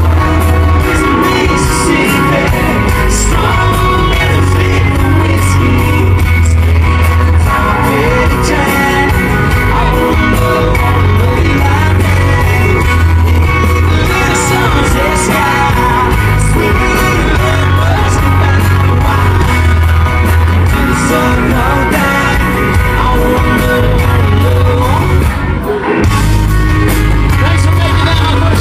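Live band with a lead singer, electric guitar and heavy bass, recorded loud from within the concert crowd. The sound dips briefly about 26 seconds in.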